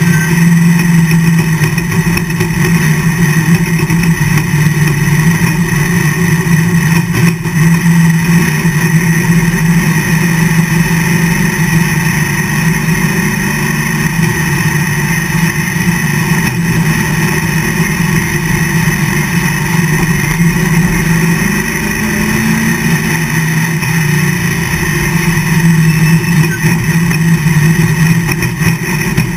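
A NASCAR racer's V8 engine heard from inside the cockpit, running with a loud, steady drone at nearly constant revs; the pitch wavers briefly about two-thirds through, then settles again.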